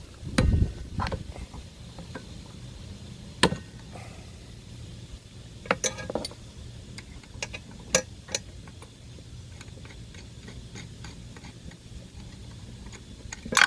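Allen wrench working the blade arbor bolt of a Porter-Cable 20V cordless circular saw, with the spindle lock held, as the bolt is loosened: scattered sharp metal clicks and knocks a few seconds apart, and a low thump about half a second in.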